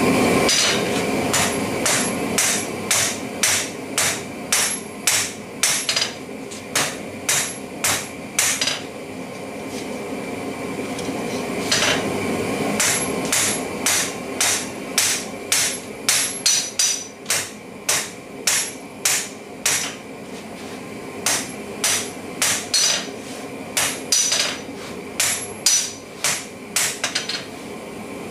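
Hand hammer striking a red-hot steel bar on an anvil, drawing the end out to a tapered point. It makes quick runs of sharp blows, about two a second, with a pause of a few seconds partway through, over a steady rushing noise.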